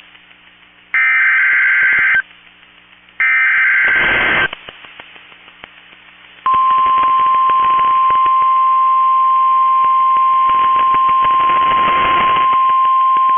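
NOAA Weather Radio Emergency Alert System signal: two harsh, warbling SAME digital header bursts, each about a second long with a second's pause between them. About six seconds in, the steady single-pitch 1050 Hz warning alarm tone starts and holds, the alert signal that heads a snow squall warning.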